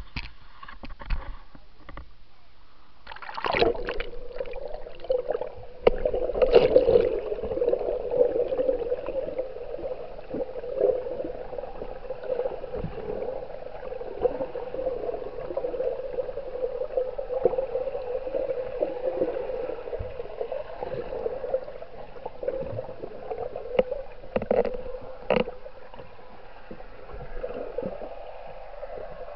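Muffled underwater sound from a camera held below the surface: a steady hum over a sloshing water haze, with a few sharp knocks and splashes, the first as it goes under.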